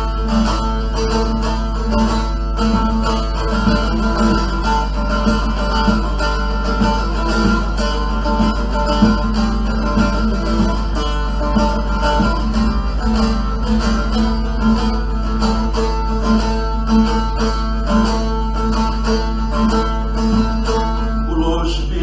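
Bağlama (long-necked Turkish saz) played solo, a busy run of plucked and strummed notes forming an instrumental interlude in a folk song, over a steady low hum. A man's voice comes back in right at the end.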